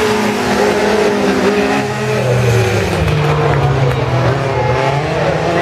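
Several autocross race car engines running hard on a dirt track, pitch dropping about two seconds in and then holding lower.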